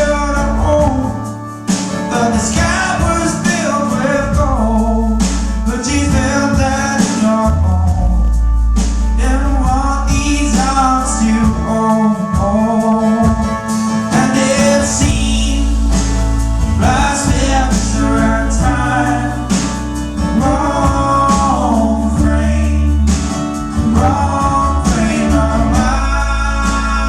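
Live band music with a male voice singing over guitar and a heavy bass line.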